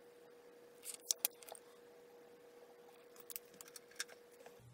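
Small sharp clicks and taps of marker pens and card being handled on a craft desk: a quick cluster about a second in and a few scattered ones near the end, over a faint steady hum that stops just before the end.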